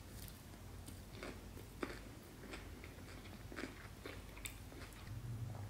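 Faint mouth sounds of a person chewing a mouthful of sushi, with soft clicks scattered through.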